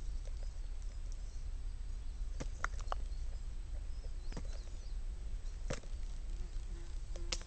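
A gull's beak pecking and tapping at pork chop bones on a stone slab right beside the microphone. It makes a quick run of three sharp clicks about two and a half seconds in, then single taps about four and a half, six and seven seconds in, over a low steady rumble.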